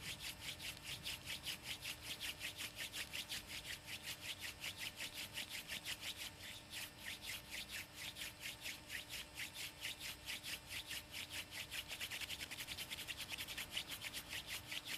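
Fire-by-friction hand drill: flat palms rubbing back and forth along a thin wooden spindle twirling in a hearth board, a steady swishing rub of about five strokes a second, quickening a little near the end. The drill is running fast with the notch full of powder and smoking, working toward a coal.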